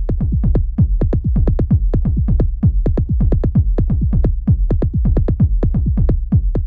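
Electronic outro music with a fast, steady beat of falling-pitch drum hits, about five a second, over a steady low bass.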